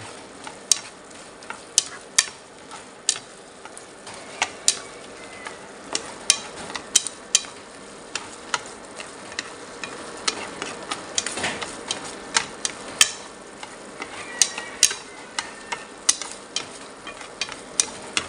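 Shrimp sizzling and bubbling in a thick garlic-butter sauce in a frying pan as the sauce reduces and the shrimp finish cooking. Chopsticks stirring them click sharply and irregularly against the pan.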